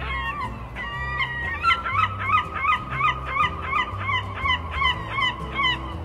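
Gull calling: a few drawn-out cries, then from about a second and a half in a fast run of short falling cries, about three a second. Background music plays underneath.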